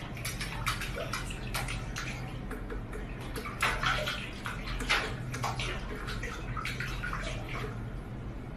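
Water running and splashing irregularly in a stainless-steel kitchen sink as a cat steps about in it.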